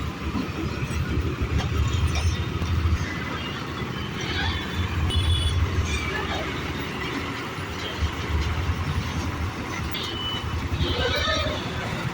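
Heavy diesel engine running with a low, pulsing rumble that swells and eases, with faint voices in the background.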